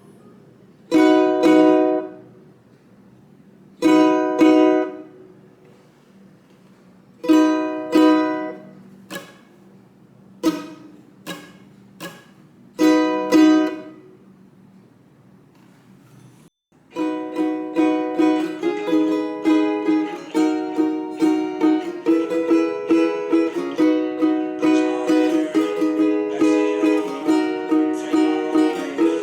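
Ukulele strumming. About eight single chord strums are each left to ring out, with pauses between them. Partway through, steady rhythmic strumming of the song's chord pattern begins and continues.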